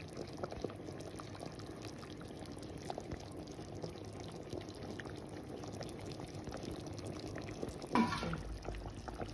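Thick chicken curry gravy boiling in a large pot: a steady bubbling with many small pops. A brief, louder sound falling in pitch about eight seconds in.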